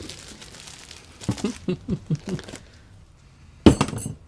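Cardboard power-supply box being opened and handled, with a short sharp clatter about three and a half seconds in.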